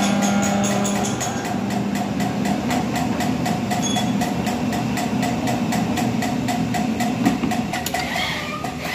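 Engine-block surfacing machine running steadily as it machines the deck face of an aluminium four-cylinder block, a steady mechanical hum with a rapid, even ticking.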